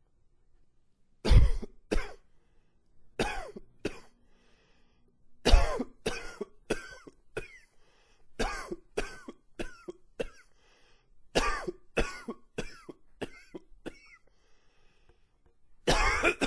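A man coughing in repeated fits of two to six harsh coughs in quick succession, with brief breaths between fits and a longer drawn-out cough near the end.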